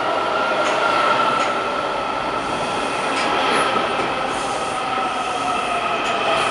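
Washington Metro 7000-series railcars rolling along the platform, with a steady high whine over the running noise of the wheels and a few faint clicks.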